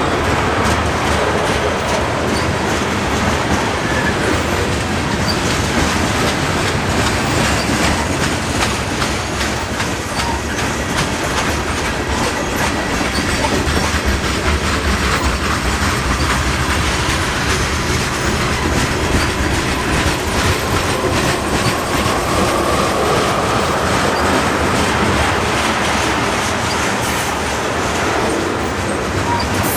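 A train rolling past close by: a steady loud rumble with rapid clicking of wheels over rail joints, and a faint wheel squeal that rises in pitch about two-thirds of the way through.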